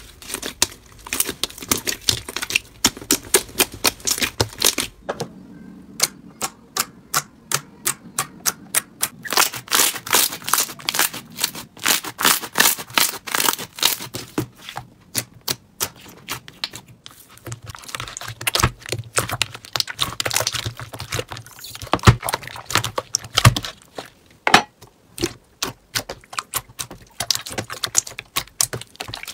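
Slime being pressed and squeezed by hand, making rapid runs of sharp clicks and pops, denser in some stretches than others, with a few louder snaps about two thirds of the way through.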